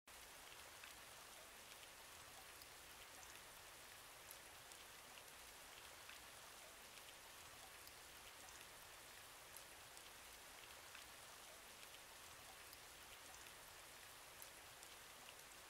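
Faint steady rain, an even hiss with scattered small drop ticks.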